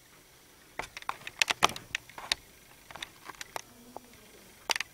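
A sheet of cardstock being handled and folded in half by hand: a run of sharp crackles and taps, thickest in the first couple of seconds, then a few scattered ones.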